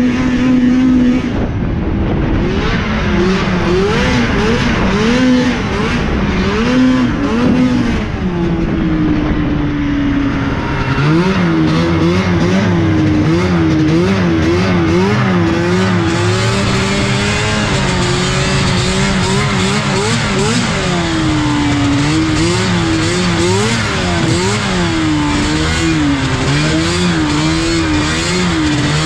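Yamaha leaf-spring snowmobile's two-stroke engine revving up and down as the throttle is opened and closed through the turns. The revs rise and fall repeatedly, with a longer drop twice.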